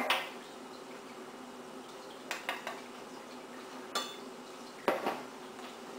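Metal spoon clinking against a stainless steel pot as spice is spooned into the marinade: a few light clinks about two seconds in, a clink with a short ring at four seconds, and another knock about a second later.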